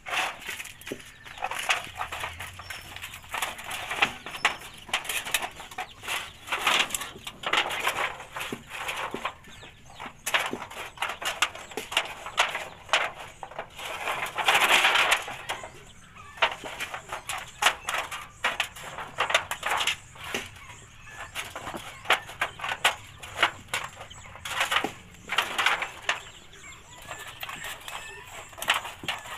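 Scissors cutting through a thin, rusty galvanized iron sheet: a run of irregular snips, with chickens clucking in the background and a louder stretch of about a second halfway through.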